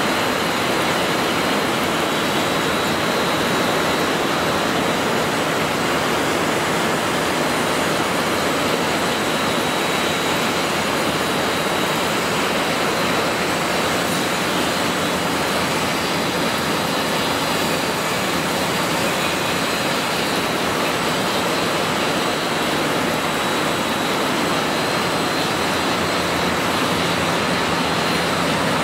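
Four-strand rope twisting machine running at speed, its rotating strand frame and drive making a loud, steady mechanical whir with a faint high whine over it.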